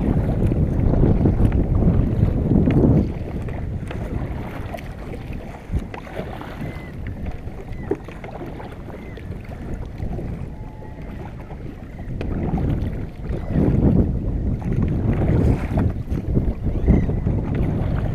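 Wind buffeting the microphone in gusts, strong at the start and again from about twelve seconds in, over water sloshing around a kayak at sea.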